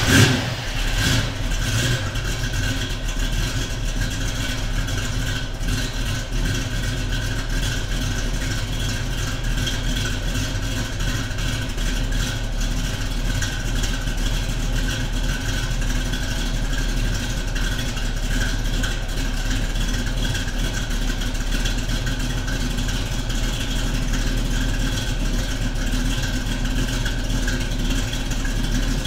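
1968 Camaro's engine idling steadily after being started, with no revving.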